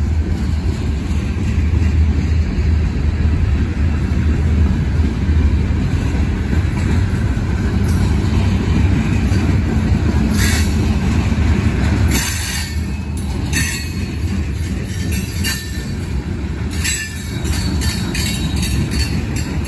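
Norfolk Southern freight cars, mostly covered hoppers, rolling slowly past with a steady low rumble of wheels on rail. From about halfway through, short high-pitched wheel squeals and clanks break in again and again.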